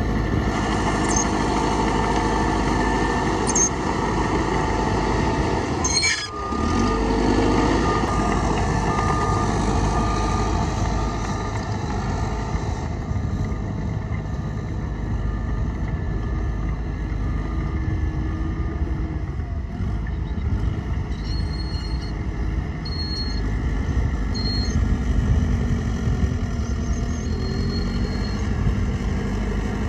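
Heavy diesel construction machinery running steadily, with a brief dip about six seconds in.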